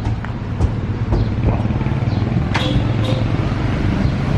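Mitsubishi Lancer Evolution VI Tommi Mäkinen Edition's turbocharged four-cylinder engine running steadily at low revs, with a few short sharp sounds over it.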